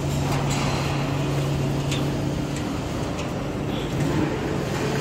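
Steady machinery hum and noise of a factory floor; its low pitched hum drops out about halfway through. A few light clicks come from a quarter-turn latch on a steel electrical cabinet door being handled.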